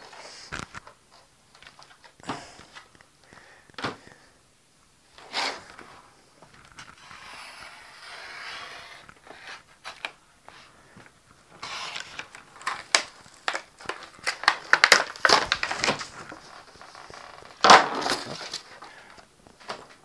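Stiff plastic blister packaging being worked and torn open by hand, with crackling, crinkling plastic and scattered sharp clicks. Sparse at first, then busy and dense in the second half.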